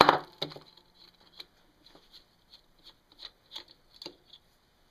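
A sharp metallic knock, then a string of light, irregular clicks and taps as the timing-chain roller bolt on the side of a 1979 Honda ATC110's cylinder is worked loose and turned out by hand.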